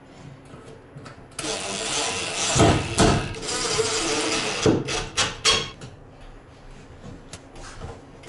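DeWalt cordless drill running as it drives a screw into a metal wall-heater grille, starting about a second and a half in and running for about four seconds, with a few sharp clicks near the end.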